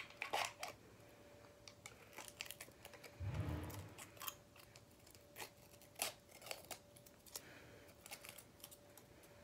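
Light clicks, taps and rustling from handling a container of tiny pebble-like Jurassi Diet hermit crab food pellets. A brief low rumble comes about three seconds in, and a faint steady hum runs underneath.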